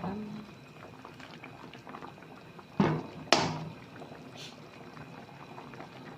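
Red curry with beef bubbling in coconut milk in a pot at a steady boil. Two sharp knocks about half a second apart come a little before the middle.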